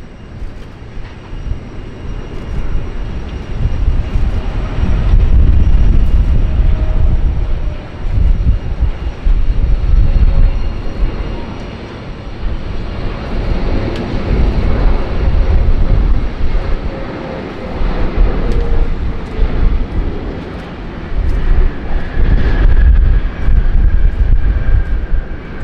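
Jet airliner engines passing: a steady rush of noise over a heavy low rumble that swells and fades several times, with a faint whine that slowly drops in pitch.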